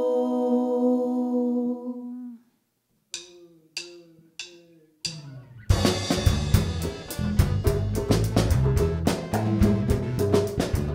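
Several women's voices hold a sung chord, which fades out after about two seconds. After a short pause come a few separate drum strikes, then a Brazilian band comes in together: drum kit, hand drums, bass guitar and guitar playing a busy, upbeat rhythm.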